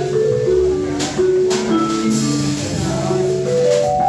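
Jazz sextet playing live: a melodic line of quick notes steps down and then climbs back up over bass and drums, with a couple of cymbal hits in the first half.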